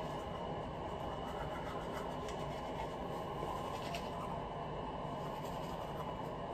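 Manual toothbrush scrubbing teeth: soft repeated rubbing strokes over a steady low background noise.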